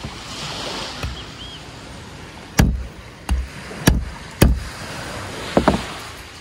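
A wooden block hammering the spine of a knife to drive it through a mullet's body against a wooden cutting board: about five heavy, dull knocks spread over three seconds, starting about two and a half seconds in.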